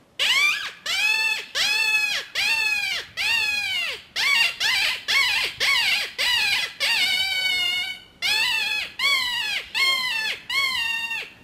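Ripping Rabbit open-reed predator call blown as a rabbit distress call: a run of short cries, about two a second, each rising and falling in pitch, with one longer wavering cry about seven seconds in.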